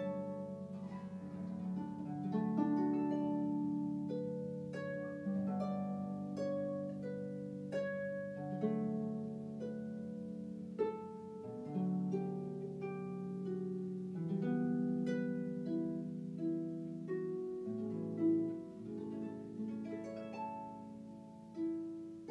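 Instrumental background music of plucked strings: a gentle tune of single notes picked one after another.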